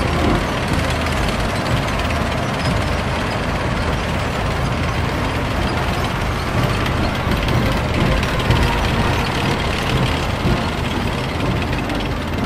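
Steady rumble and mechanical clatter of heavy military vehicles moving, loud and unbroken.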